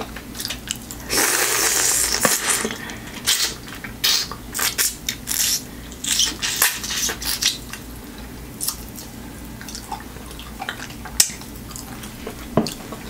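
Close-up eating sounds of a sauced shrimp being pulled apart with the fingers and bitten. A burst of crackling noise comes about a second in, followed by a run of quick clicks and smacks that thin out after about seven seconds.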